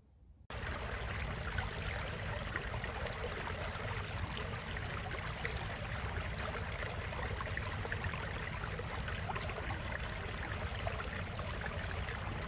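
A steady rushing noise with a fine crackle. It starts abruptly about half a second in and cuts off suddenly at the end.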